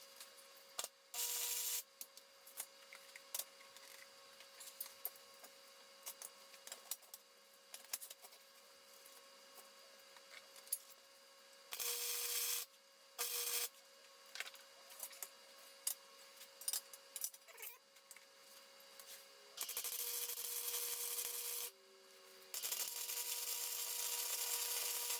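Arc welding in bursts: a steady hiss lasting under a second at a time early on, then two longer welds of two to three seconds near the end, with light clicks and taps of metal being handled in between.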